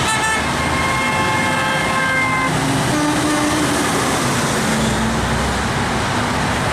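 Highway traffic passing with vehicle horns honking. A long, steady horn blast of about two seconds comes near the start, followed by shorter, lower-pitched honks around the middle.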